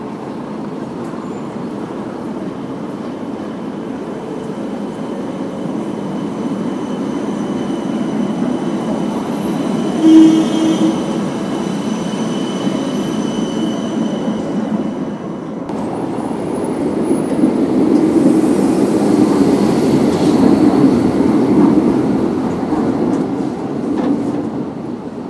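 Street trams passing on track laid in cobbles. A modern low-floor tram runs by close, with a brief loud tone about ten seconds in and a faint high wheel squeal after it. An older articulated tram then approaches and rolls past, louder, its sound fading near the end.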